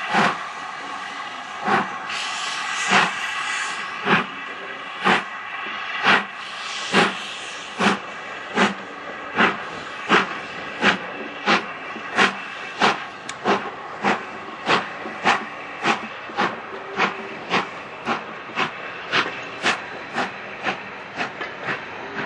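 Steam locomotive getting a passenger train under way: sharp exhaust chuffs that quicken from about one a second to about two a second as it gathers speed, over a steady hiss of steam.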